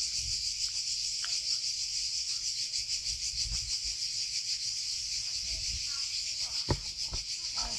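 A chorus of cicadas buzzing steadily, a high, rapidly pulsing drone, with faint distant voices and a single sharp knock about two-thirds of the way through.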